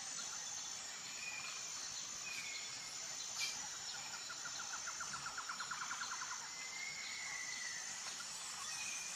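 Faint outdoor ambience: a high, thin insect trill comes and goes, with a few short bird chirps. Around the middle there is a fast run of pulses, about ten a second.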